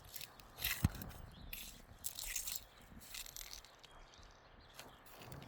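Metal nail-pulling tool working under asphalt roof shingles to pull roofing nails: scraping and clicking, with one sharp knock just under a second in.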